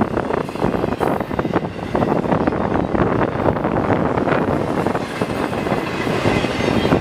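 Intermodal freight train's container and trailer cars rolling past at speed: steady, loud noise of steel wheels on rail, dotted with quick clacks and knocks.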